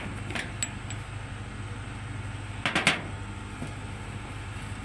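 Steel rocker arms and springs clinking as they are handled and slid along a Kubota M9000 engine's rocker shaft: a few light clinks, then a louder double clink a little under three seconds in, over a steady low hum.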